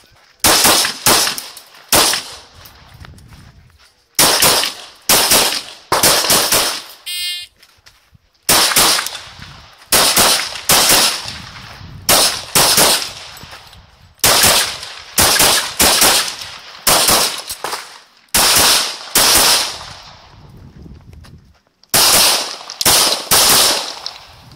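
Glock 35 .40 S&W pistol firing about thirty shots in quick strings of two to five, roughly half a second apart, with pauses of a second or two between strings.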